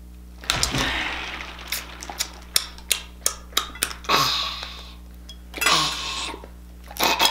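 King crab legs handled on a plate: the hard shell clacks and cracks in a run of sharp clicks, with short rustling stretches between, after a loud rush of noise about half a second in.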